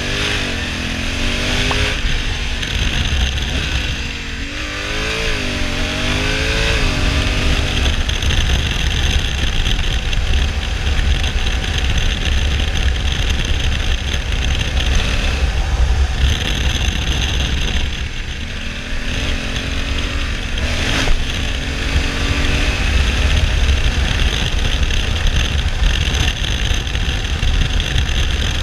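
Honda Africa Twin CRF1100L's 1084 cc parallel-twin engine under way. Its revs rise and drop several times in the first eight seconds and again about twenty seconds in, as it pulls through the gears. Under it runs a steady rush of wind and road noise.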